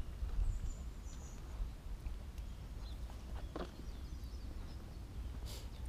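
Quiet outdoor background: a steady low rumble of wind on the microphone, with a few faint soft taps of walking and a faint high chirp.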